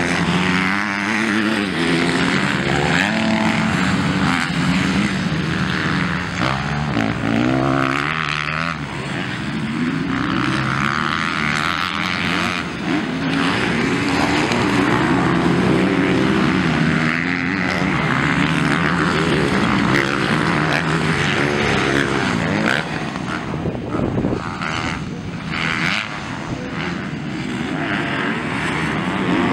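MX2-class motocross motorcycles racing around the dirt track, several engines overlapping and revving up and down as riders accelerate and shift.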